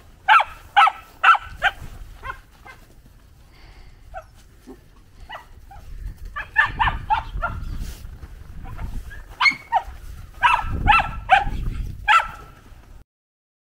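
Dogs barking in quick, excited runs of short barks, several times over, with a low rumble under the later barks; the sound breaks off suddenly near the end.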